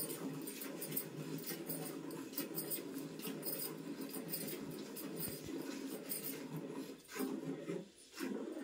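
Rhythmic squirts of milk from hand-milking a cow into a steel pail, over a steady low rushing sound that drops out briefly twice near the end.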